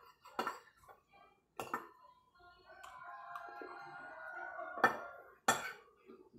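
Metal fork and spoon clinking and scraping against a plate: four sharp clinks, the loudest a little before the end. A fainter held, toned sound runs in the background for about two seconds in the middle.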